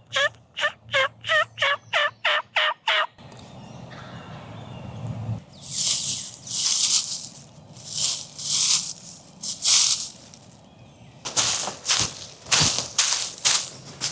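Wild turkey calling: a run of about ten evenly spaced yelps, roughly three a second, lasting about three seconds. Then, from the middle on, rustling and a run of crunching in dry vegetation.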